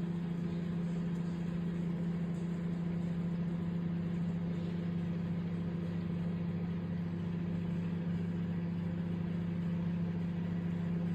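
Microwave oven running with a steady, even hum while a bag of popcorn heats, before any kernels have started to pop.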